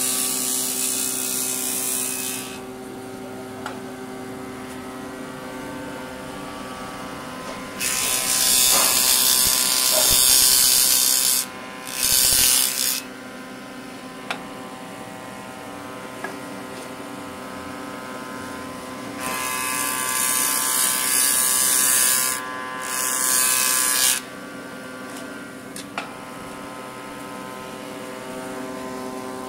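Hitachi combination woodworking machine running with a steady motor hum, its jointer cutterhead planing a board in loud rushing passes: one ending a couple of seconds in, then twice a cut of about three seconds followed by a short one.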